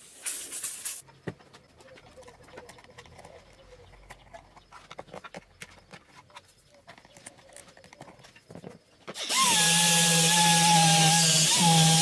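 Faint clicks and handling noises, then about nine seconds in an electric power tool starts suddenly and runs steadily at full speed, with a steady whine over loud hiss.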